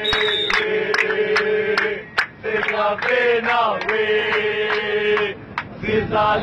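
A crowd of football supporters chanting in unison in a crowded airliner cabin, keeping time with hand claps about two a second; the chant breaks off briefly twice.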